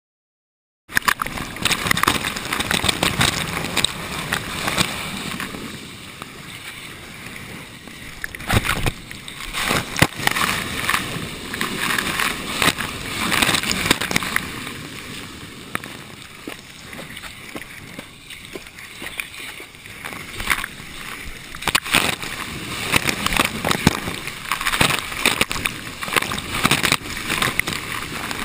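Rushing water and breaking surf heard through a surfer's waterproof action camera, with many sharp splashes and knocks as spray and water strike the camera housing. It starts abruptly about a second in.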